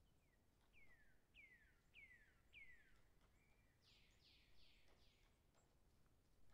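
Very faint bird calls over near silence: four falling whistled notes about half a second apart, then a quick run of harsher, buzzier notes.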